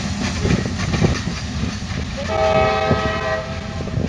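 Freight train running with a steady low rumble and scattered clicks of wheels on the rails. About two seconds in, the locomotive's horn sounds one chord of several tones for over a second, then stops.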